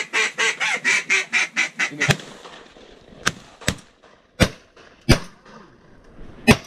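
Duck call blown close by: a fast run of quacks, about six a second, for the first two seconds, then five or six short single quacks spaced out over the rest.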